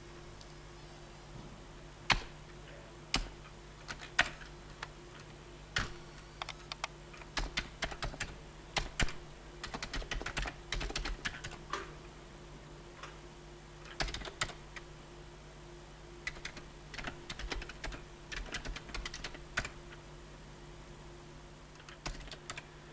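Typing on a keyboard: single key presses a second or so apart at first, then quick runs of keystrokes with pauses between. A faint steady hum lies underneath.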